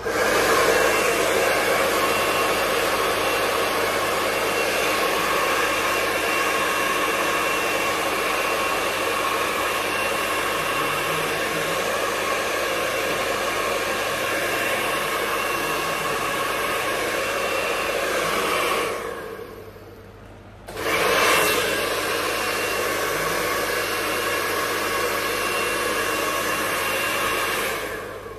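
Handheld hair dryer running steadily as it blow-dries short hair: a loud rush of air with a faint steady motor whine. It drops out for about two seconds about two-thirds of the way through, comes back on, and stops just before the end.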